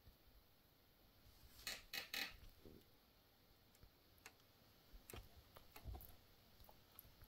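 Faint scattered clicks and taps over quiet room hiss, with a brief cluster of louder clicks about two seconds in and a few more near the end.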